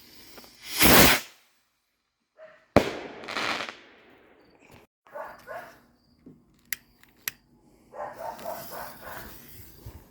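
Backyard consumer fireworks going off: a loud hissing burst about a second in, then a sharp bang with a crackling tail near the three-second mark. A few small pops follow, and a dog barks near the end.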